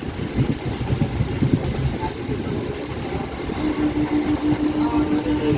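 Steady low rumble of a moving vehicle, with a single steady tone that comes in about three and a half seconds in and holds.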